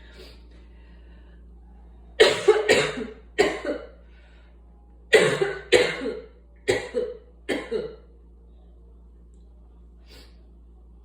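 A person coughing from asthma in two fits, three coughs and then four, each cough sharp and loud.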